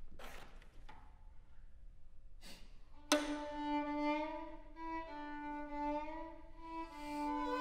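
Two violins playing a contemporary duo: two brief, hissing strokes with little pitch, then about three seconds in a sharp accented attack opening into held, sustained notes that shift in pitch a few times.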